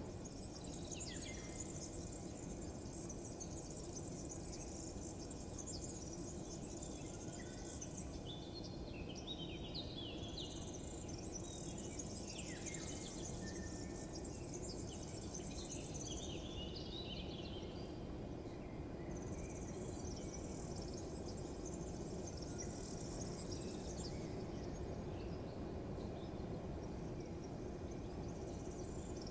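Outdoor ambience of insects trilling in a high chorus that swells and fades every several seconds, with short bird chirps around the middle, over a steady low rumble.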